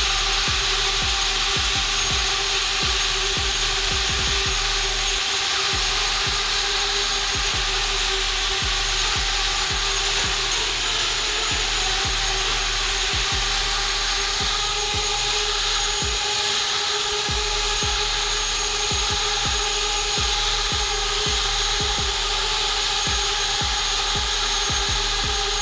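FPV racing quadcopter's brushless motors spinning at low throttle: a steady high-pitched motor whine with a hiss of propeller air, as the drone skids and hops over a tiled floor. Irregular light clicks and taps run throughout.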